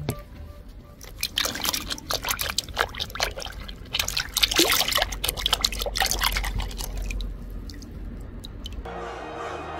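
Water pouring and splashing in quick, irregular splashes and drips while mud is washed off small toy cars.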